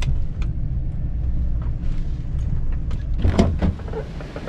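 Pickup truck running, a steady low rumble with a few light clicks and rattles, and a couple of louder clunks about three seconds in.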